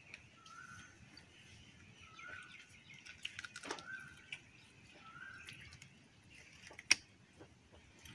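Birds calling outdoors: one bird repeats a short call about every second and a half over fainter chirps. There are a few light clicks in the middle and one sharp click about seven seconds in.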